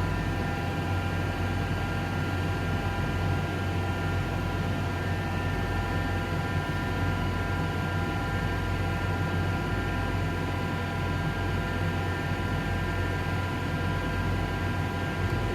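CNC surface grinding machine running steadily: a constant low motor hum with several steady whining tones above it.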